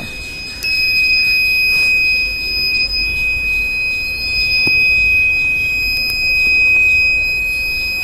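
The 9-volt buzzer of a homemade PIR motion-sensor alarm sounding one steady, unbroken high-pitched tone that starts about half a second in. The alarm has been tripped by motion in front of its PIR sensor.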